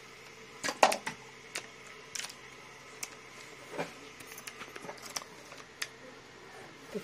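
Handling noise in a small room: scattered light clicks and knocks, the loudest about a second in, over a faint steady hum.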